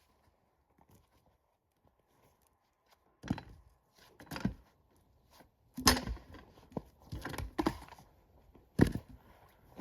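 Irregular knocks and thuds of wooden pieces being handled, starting about three seconds in, with about five louder hits.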